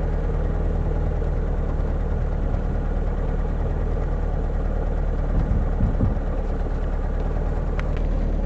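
Car engine idling steadily, heard from inside the vehicle, with a brief louder low rumble about five and a half seconds in and a faint click or two near the end.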